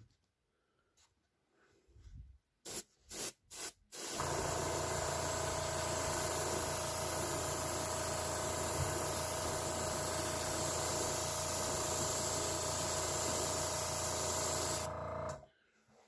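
Airbrush spraying transparent dark-green lure paint: four short spurts of air about three seconds in, then a continuous steady hiss for about eleven seconds with a low hum beneath it, cutting off abruptly near the end.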